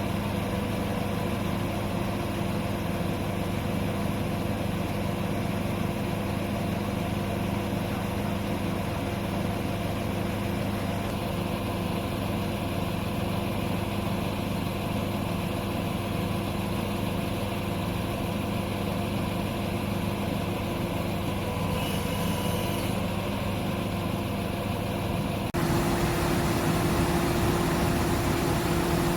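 Heavy diesel engine of a mobile truck crane running steadily with a low hum. About 25 seconds in the sound changes abruptly to a louder running with a higher steady hum.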